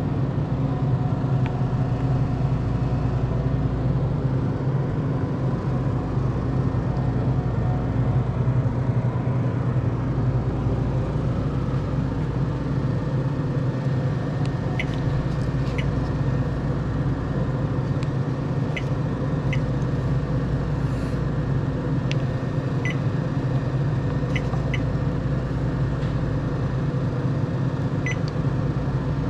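Steady electrical hum of a refrigerated ice cream vending machine's cooling unit. In the second half, a dozen or so short high beeps from its keypad being pressed.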